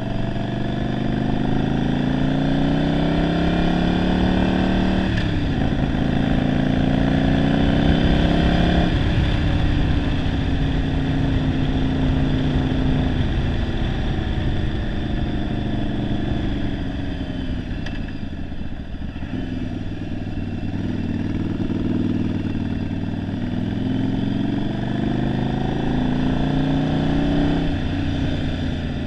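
1991 Yamaha Virago 750's air-cooled V-twin, converted to a single carburettor, under way. The note climbs, drops sharply with gear changes about five and nine seconds in, and sinks around eighteen seconds as the bike slows. It then climbs again, with another shift near the end. The owner says the engine is running poorly.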